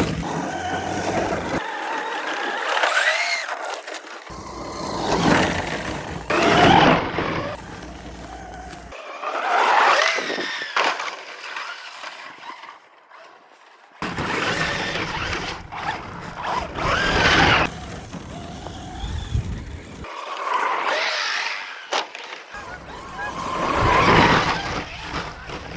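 Traxxas Ford Raptor RC truck's electric motor whining up and down in repeated bursts of acceleration, with its tyres running over dirt and snow.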